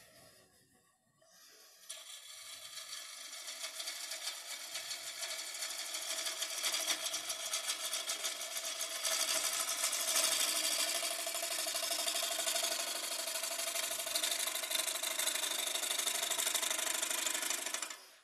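A turning gouge cutting the rim of a natural-edge bowl of freshly harvested green cedar spinning on a wood lathe. The steady hissing cut, with a fast, even flutter, starts about two seconds in, grows louder and stops sharply as the tool is lifted away near the end.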